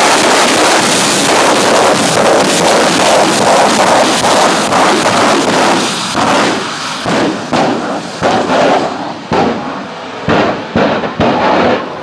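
Drag car engine running flat out in a continuous, heavy roar through a tyre-smoking burnout. About six seconds in it turns into a string of sharp, irregular exhaust bangs as flames shoot from the exhaust.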